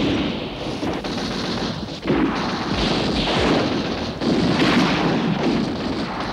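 Battle sounds of gunfire and artillery: a dense rattle of shots, with sudden louder bursts about two seconds and about four seconds in.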